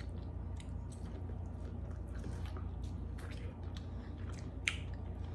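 A person biting into and chewing food close to the microphone, a run of small mouth clicks with a sharper click about four and a half seconds in, over a steady low hum.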